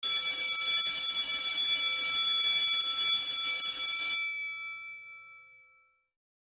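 Electric alarm bell ringing continuously, like a fire or school bell, for about four seconds; then it stops and the bell's tone rings out and fades over about two seconds.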